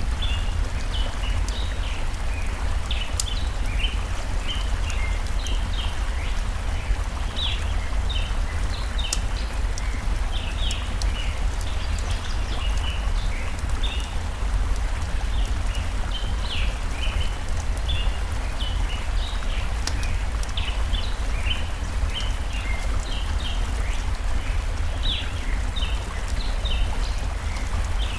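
Layered forest ambience: a flowing stream gives a steady rush with a deep rumble under it. Birds chirp in quick short notes throughout, and now and then a wood fire gives a sharp crackle.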